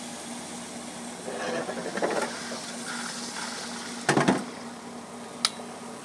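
Hand working the control knob on a Fleck water-treatment control valve to set it back in service: a short knock about four seconds in and a sharp click near the end, over a steady low hum.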